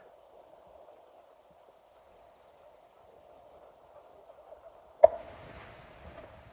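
Faint steady background noise, then about five seconds in a single sharp, loud firework bang followed by a low rumbling echo.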